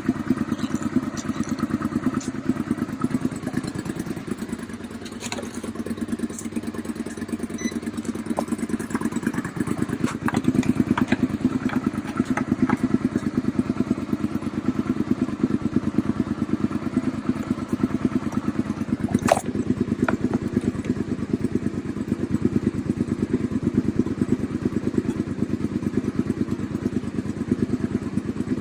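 Suzuki SV650's V-twin engine idling steadily, dipping briefly a few seconds in, with scattered small ticks and one sharp click a little past halfway. The owner judges that the charging system puts out too little at idle.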